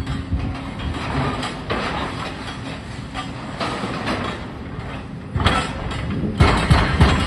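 Demolition excavators working a collapsed building: diesel engines running under irregular clanking and crunching of concrete and steel rubble, getting louder about five and a half seconds in.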